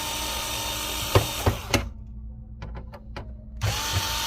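Electric screwdriver spinning out the screws that hold a PlayStation 5's cooling fan. It runs steadily, stops about two seconds in with a few sharp clicks and small ticks, then starts running again near the end.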